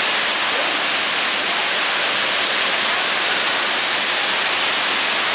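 Waterfall: water falling onto rocks in a steady, loud, unbroken rush.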